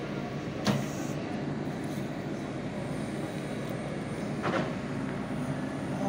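Dump truck's diesel engine idling steadily, with two short sharp knocks, one just under a second in and another about four and a half seconds in.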